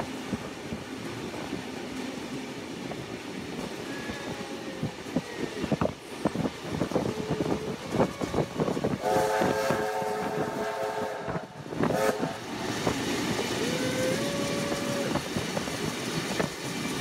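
Steam trains running at speed side by side: steady wheel-and-rail rumble with clacking over the rail joints. About nine seconds in a steam locomotive whistle sounds a chord of several notes for about two seconds, and a shorter single whistle note follows about four seconds later.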